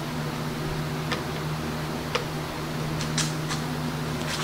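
A few short, light clicks and taps from handling bar clamps and PVC pipe on a wooden frame, spaced irregularly over a steady low hum.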